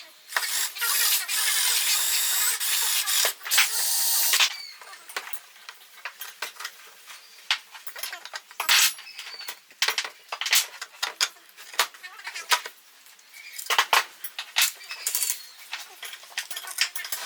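A small handheld power tool runs for about four seconds and then stops. Scattered clicks and knocks of tools and parts being handled on a workbench follow.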